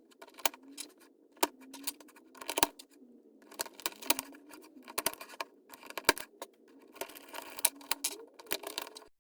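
Hard plastic pieces of a freshly lubed Moyu Weilong Ferrocore speedcube clicking and clacking as they are fitted back together by hand, in many irregular sharp clicks.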